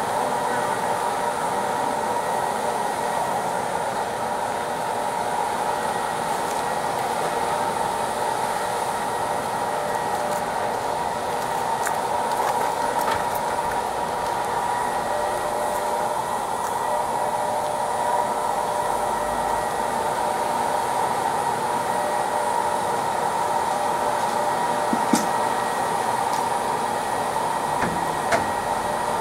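Steady, even roar of asphalt-heating road-repair machinery running continuously, with a couple of faint sharp ticks near the end.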